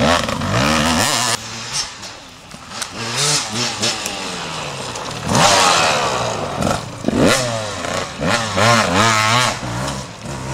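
Enduro dirt bikes riding past close by, their engines revving up and falling back again and again as the riders work the throttle and shift gears.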